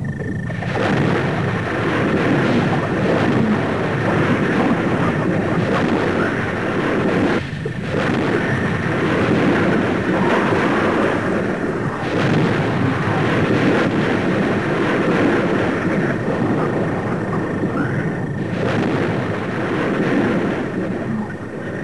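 Loud, continuous rumbling noise, a thunder-like sound effect for a primeval world. It dips briefly about a third of the way in and again shortly before the end.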